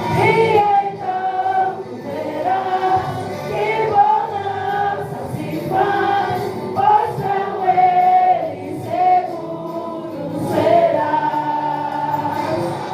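A group of voices singing a Portuguese gospel song together in choir style, over instrumental backing with steady bass notes.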